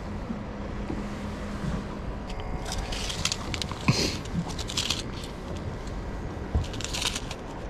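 Plastic packet of fishing hooks crinkling and rustling in the hands, several crackly bursts from about two and a half seconds in, over a steady low background rumble.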